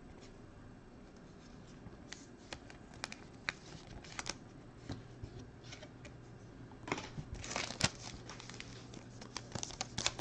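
Scattered light clicks and taps as trading cards and a pack are handled, then, from about seven seconds in, a foil trading-card pack wrapper crinkling as it is torn open.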